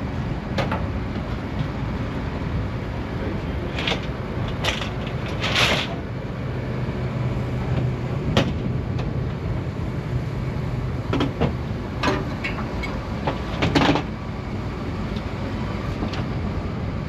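Steady low engine rumble, with eight or so short sharp bangs or knocks scattered through it.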